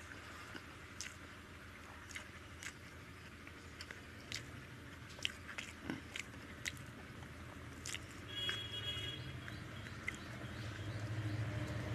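Eating with the fingers: small wet clicks and squelches of rice being mashed into lentil dal on a plate, with chewing and lip smacks. A low steady hum comes up near the end.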